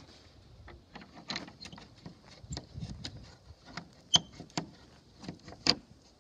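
Footsteps on dry dirt and grass: irregular light crunches and clicks, with two sharper clicks about four seconds and five and a half seconds in.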